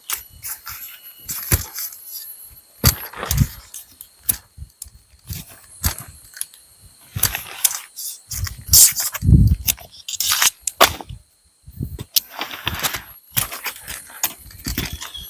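Irregular knocks, clicks and rattles of things being handled, with a few heavier thuds.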